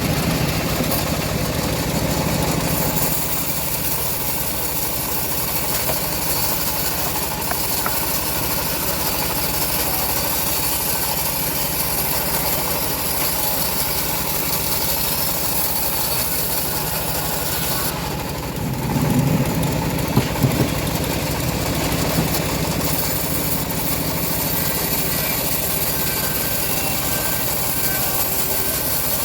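Homemade bandsaw mill running steadily with the hum of its engine. About two-thirds of the way through the sound briefly dips, then comes back with a heavier low rumble and a few sharp knocks.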